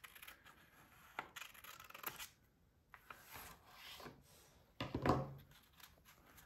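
Scissors snipping paper a few times, then hands rubbing and pressing a paper page flat on a wooden tabletop, with one louder rub and thump about five seconds in.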